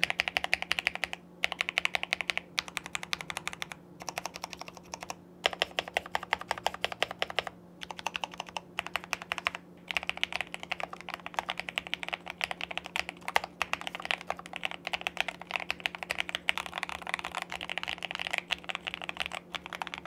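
Fast typing on a Tester 68 budget mechanical keyboard kit with a standoff-mounted case, in a typing sound test. The keystrokes come in quick continuous runs with short breaks every second or two.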